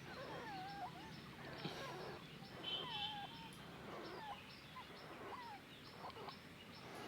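Newborn puppies whining and squeaking: a string of short, faint, wavering high-pitched cries.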